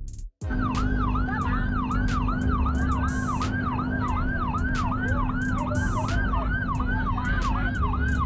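Ambulance siren sounding a fast rising-and-falling yelp, about two and a half sweeps a second, over the steady hum and rumble of engines in stopped traffic. It cuts in after a brief dropout a moment after the start.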